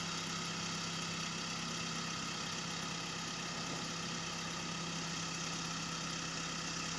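John Deere 310E backhoe's four-cylinder diesel engine running steadily at idle, with an even low hum.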